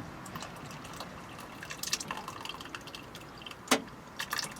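Cooked sloe berries and juice being poured from a saucepan into a muslin-lined bowl: liquid trickling and dripping with small clicks and taps, and one sharper knock about three-quarters of the way through.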